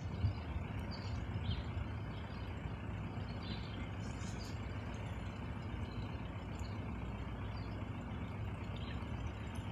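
Steady low outdoor rumble, with a few faint bird chirps scattered through it.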